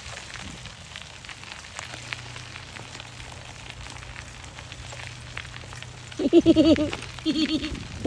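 Bicycle tyres and footsteps crunching along a gritty gravel path, a steady crackle full of small clicks. About six seconds in, a high voice calls out twice, briefly; these two calls are the loudest sounds.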